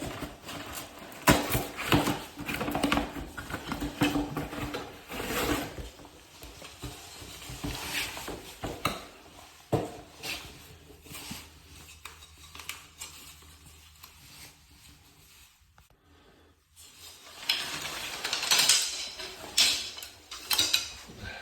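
A bamboo bath mat being unboxed: packaging handled and pulled away, with repeated hard clattering of the mat's wooden slats. The clatter comes in dense spells, eases off with a brief lull past the middle, and picks up again near the end.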